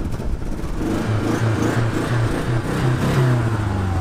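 Turbocharged four-cylinder engine of a 1987 Dodge Charger Shelby being revved in a few uneven surges, then dropping back toward idle near the end. It runs rough, like a golf cart or a leaf blower, after sitting with its tank almost empty.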